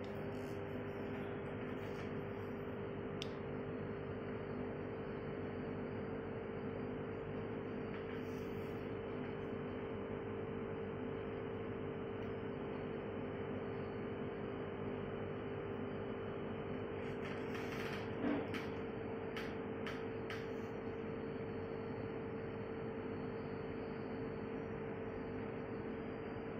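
Steady electrical hum over a constant hiss, typical of aquarium air pumps and filters running, with a few short clicks about two thirds of the way through, one louder than the rest.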